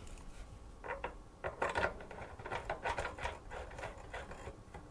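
Wi-Fi antennas being screwed by hand onto the card's threaded connectors at the back of a PC case: a run of faint, irregular clicks and scrapes.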